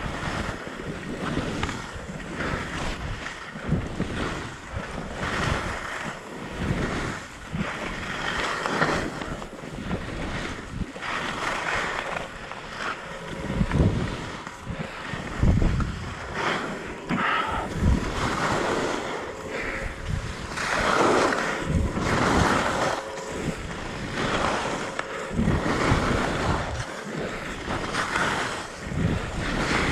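Edges carving down a groomed ski run, a hiss and scrape on packed snow that swells and fades with each turn, with wind buffeting the helmet camera's microphone.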